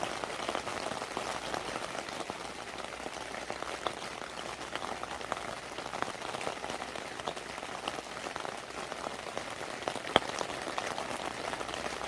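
Steady autumn rain pattering, with many separate drops ticking close by and one sharper drop about ten seconds in.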